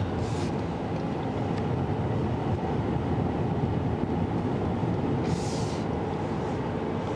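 Car driving, heard from inside the cabin: steady engine and tyre noise, with short hissing rushes near the start and about five and a half seconds in.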